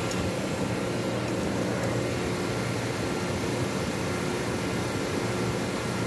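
Ship's air-conditioning compressor running, a steady machinery drone with several steady low hum tones over a broad hiss.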